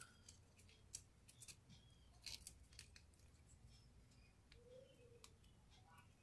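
Faint crinkles and clicks of a square of origami paper being creased and pressed by fingers, a handful of small scattered snaps.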